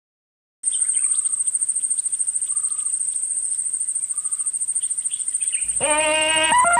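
Jungle ambience: a steady, high, rapidly pulsing insect trill like a cricket's, with scattered faint bird chirps. About five and a half seconds in, a loud Tarzan jungle yell sets in over it, a long yodelling call that jumps up and down between held notes.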